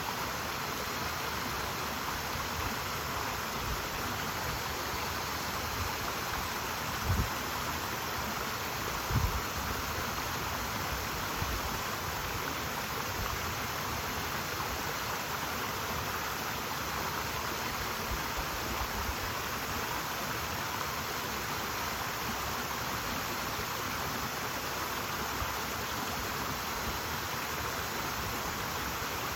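Clear mountain stream flowing and babbling steadily over rocks. Two brief low thumps come about seven and nine seconds in.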